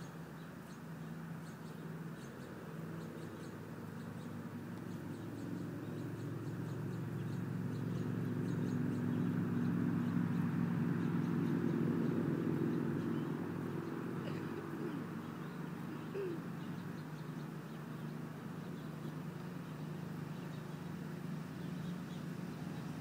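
Low engine hum that grows louder to a peak about halfway through and then fades, with faint bird chirps above it.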